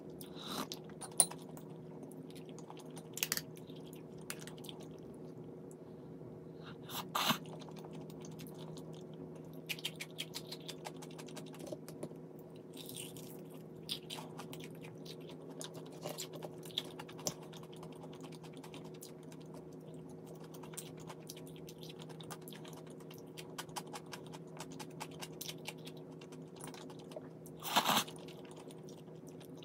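A person eating crunchy food close to the microphone: scattered bites, crunches and chewing with small clicks, the loudest crunches about seven seconds in and near the end, over a steady low hum.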